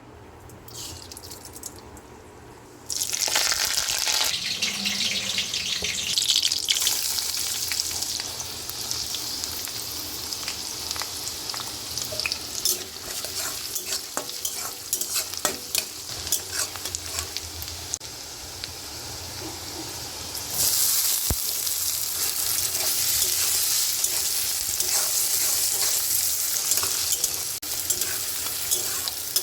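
Ingredients sizzling in hot oil in a cooking pan, the sizzle starting suddenly about three seconds in, with the clicks and scrapes of a spatula stirring. The sizzle grows louder again about two-thirds of the way through, as if more is added to the pan.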